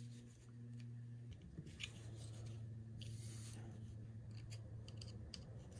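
Faint scraping and clicking of a thin metal pick prying at the bolster of a vintage Ulster camping knife, over a steady low hum.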